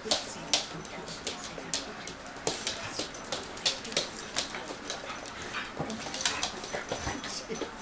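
Several small dogs whining excitedly as they greet someone in the morning, climbing over her lap, with many short sharp clicks throughout.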